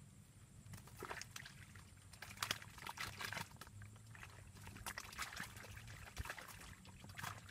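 Irregular small splashes and popping clicks on the surface of a pond, starting about a second in, over a faint steady low hum.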